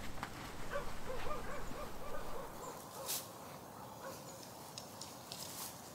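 Faint animal call: a quick run of short, wavering notes lasting about two seconds, with a single sharp tap near the middle.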